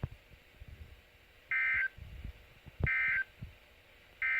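Emergency Alert System end-of-message (EOM) data bursts on NOAA Weather Radio: three short, loud warbling digital tone bursts about a second and a half apart, signalling that the alert broadcast is over. Faint low thumps and a click come between the bursts.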